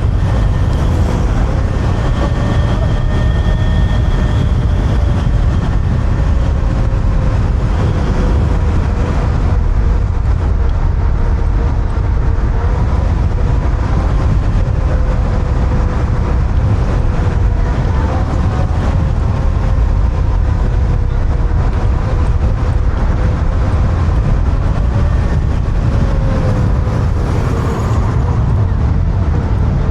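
Wind rushing over the microphone at riding speed on a Kaabo Wolf King GTR electric scooter, with a steady whine from its hub motors underneath.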